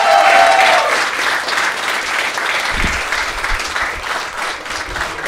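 Live audience applauding, the applause gradually dying down.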